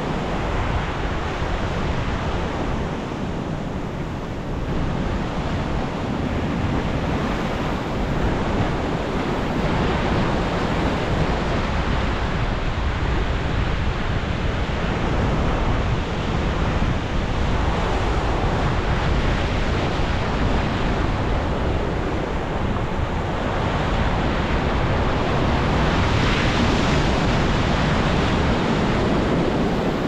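Ocean surf breaking into a rocky canyon: a continuous wash of waves that swells and eases, with a bigger crash about three-quarters of the way through.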